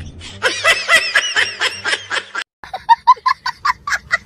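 Hearty laughter in quick repeated bursts, a young child's in the latter part, with a brief break about two and a half seconds in.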